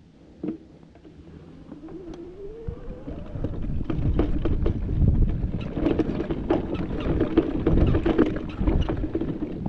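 Mountain bike ridden down a dirt forest trail, growing louder as it picks up speed: tyres on the dirt, frequent clicks and knocks of the bike rattling over bumps, and wind on the chest-mounted camera. A whine rises in pitch about two to three seconds in.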